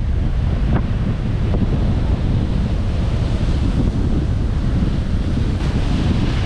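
Heavy storm-driven surf crashing and washing, with strong wind buffeting the microphone in a steady low rumble.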